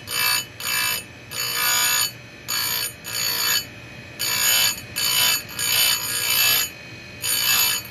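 Oregon bench chain grinder's wheel grinding a chainsaw cutter tooth in short, light passes, a high grinding hiss with each touch, a little more than once a second. The grinder motor hums steadily between passes.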